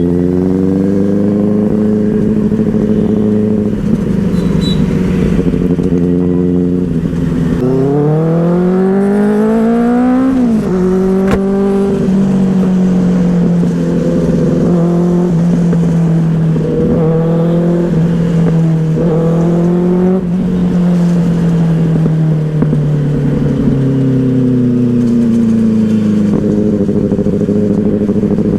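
Benelli 600i inline-four motorcycle engine under way: a steady drone that climbs in pitch through a gear about eight seconds in, drops sharply at an upshift about ten seconds in, then holds an even cruise with a few small rises and falls.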